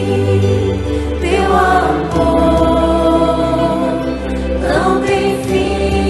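Christian worship song: voices singing long held notes over a steady low bass, with notes sliding upward about a second in and again near the end.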